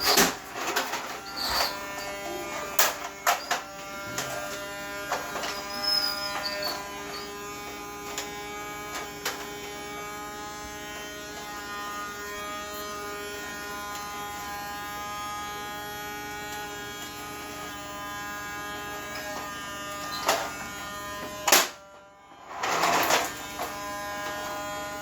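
Vacuum cleaner motor running with a steady buzzing hum, with frequent knocks and bumps over the first several seconds. It cuts out briefly about 22 seconds in, then a noisy rush comes back.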